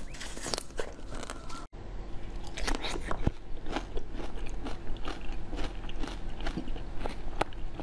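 Close-miked biting and chewing, many short crisp crunches. First a frozen chocolate ice-cream bar is bitten. After a brief cut about two seconds in, clear jelly topped with pomegranate seeds is chewed.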